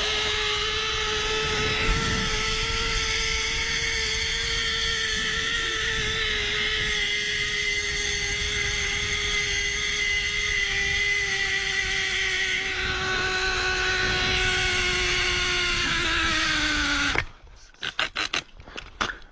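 A motor running at a steady high pitch, sagging slightly in pitch near the end before cutting off suddenly, then a few sharp clicks.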